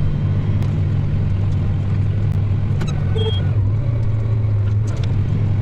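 Diesel tractor engine running steadily as it works a field, a constant low drone, with a few light clicks and rattles over it.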